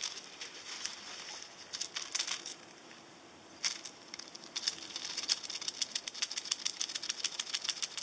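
A stack of drilled copper pennies threaded on a fishing rig clinking against each other as the rig is shaken, working as a fish-attracting rattle. A few short bursts of clinks come first, then about halfway in a rapid, steady run of clinks.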